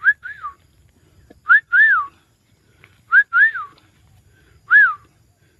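Whistled notes that rise and then fall, mostly in pairs, repeated about every second and a half, with a single note near the end.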